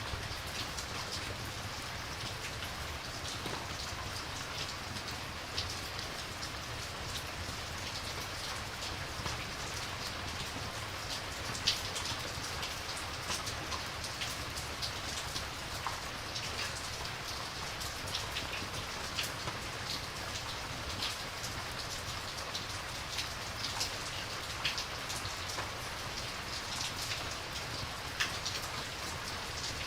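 Steady rain, an even hiss with many small sharp ticks scattered throughout.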